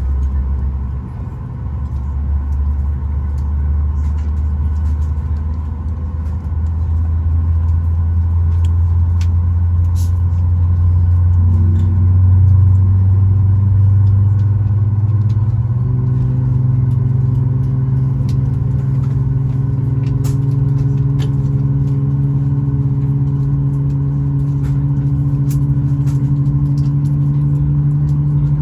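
Cabin noise of a Boeing 737 MAX 8 on the ground: a loud, steady low hum from the aircraft's engines and systems that steps up in pitch a few times, about twelve and sixteen seconds in.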